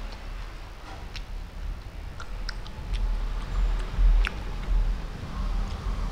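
Close-up mouth sounds of chewing a chocolate-coated ice cream bar: scattered, irregular wet clicks and smacks, with low thumps around the middle and the sharpest click about four seconds in.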